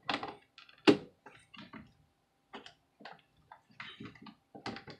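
Plastic snap-fit clips of a laptop's keyboard deck clicking and a plastic pry tool scraping along the case seam as the case is pried apart, with one louder click about a second in.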